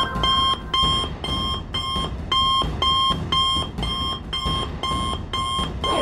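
Cartoon wrist communicator's call alert: short electronic beeps repeating at about two a second, signalling an incoming call for help.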